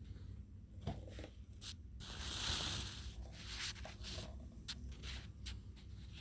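Rustling, with light clicks and scrapes of things being handled and a longer swishing rustle about two seconds in.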